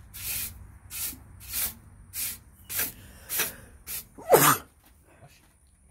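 Hand strokes scraping back and forth across an iron bar clamped in a bench vise, about eight rasping strokes in an even rhythm. The last stroke is the loudest and ends in a downward-sliding squeal.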